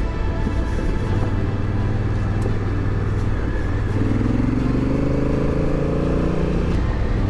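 Honda Africa Twin's parallel-twin engine running under way, its note rising from about four seconds in as the bike accelerates, with background music alongside.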